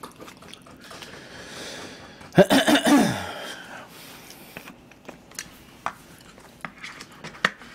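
A man clears his throat once, briefly, about two and a half seconds in. Later come scattered light clicks of a plastic spoon against plastic takeaway food containers.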